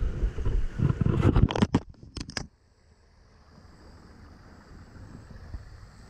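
Wind buffeting the camera's microphone, with a run of knocks and scrapes from handling the caught largemouth bass. It all cuts off abruptly about two and a half seconds in, leaving only a faint steady hiss.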